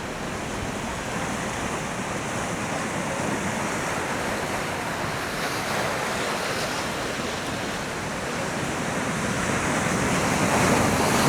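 Sea swell washing and breaking against shoreline rocks, a continuous rush of surf that swells louder near the end.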